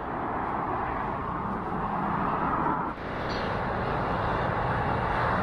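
Steady noise of fast traffic on a dual carriageway, mostly tyres on the road, dropping briefly about three seconds in.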